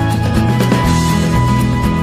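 Instrumental background music with a shifting bass line and drum hits.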